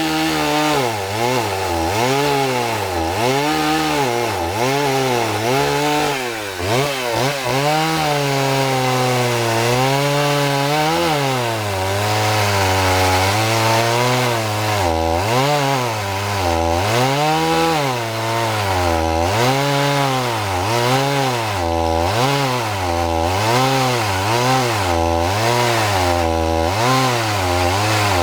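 Chainsaw with a 12-inch bar cutting into a log, its engine pitch dipping and rising again and again as it loads in the wood and revs back up, about once a second toward the end.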